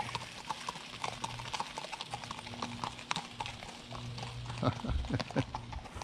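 Hooves of a pair of carriage horses clip-clopping on a hard gravel track as the horse-drawn carriage moves away.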